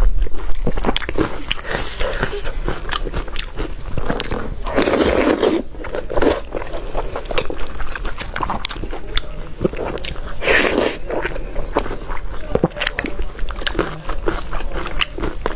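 Close-miked eating of roast lamb: steady chewing and biting with wet smacks, as the meat is pulled apart by hand. Two louder crunchy bursts come about five and ten seconds in.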